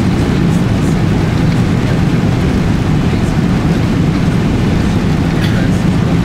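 Boeing 777-300ER's GE90 engines at takeoff thrust during the takeoff roll, heard inside the cabin as a loud, steady low rumble.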